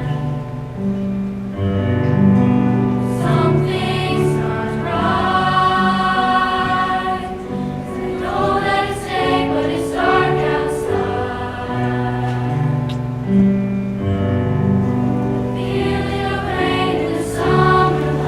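Music: a slow song with choir-like layered singing over long held chords.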